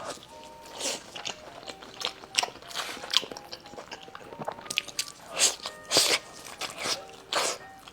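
Close-miked mouth sounds of someone eating a bite of grilled eel: irregular chewing clicks and smacks, several a second, with a few louder ones past the middle.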